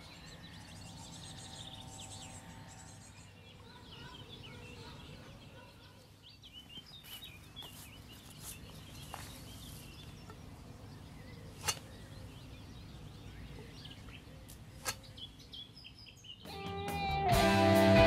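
Lakeside ambience with a steady low rumble and small birds chirping. About two thirds of the way in, a boilie throwing stick is swung twice, about three seconds apart, each a short sharp whoosh.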